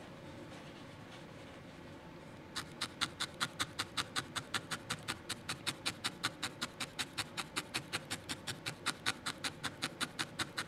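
Barbed felting needle stabbing repeatedly into wool roving on a felted wool ball: fast, even pokes about five a second, starting a couple of seconds in.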